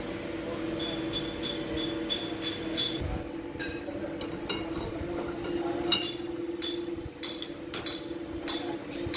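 Metal parts clinking and clicking as a brass-coloured bush is handled and fitted onto a line-boring fixture, with light ticks about three a second in the first few seconds, over a steady machine hum.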